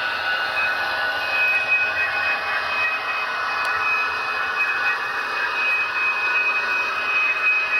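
Model train, an FP9A diesel locomotive model hauling passenger cars, running along the layout track: a steady whirring rush of wheels and drive, with a thin steady whine joining about a second in.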